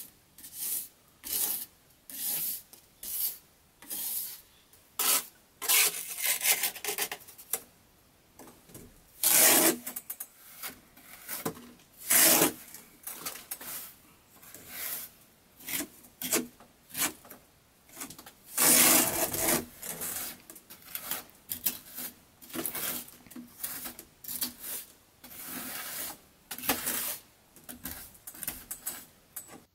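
Hand trowel scraping wet mortar into the gaps between logs, pressing and smoothing it in repeated short scraping strokes about one a second, with a few longer, louder strokes.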